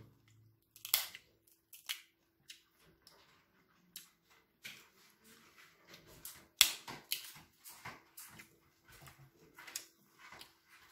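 Snow crab shells cracking and clicking as they are broken open and picked apart at the table, in irregular sharp clicks with the loudest crack a little after halfway.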